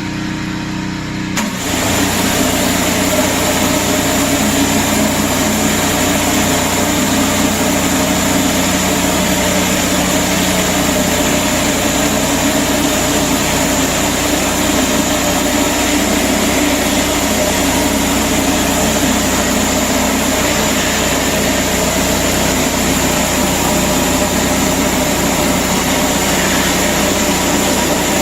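Gas pressure washer engine running steadily. About a second in, a loud hiss of high-pressure water spray joins it and stays on.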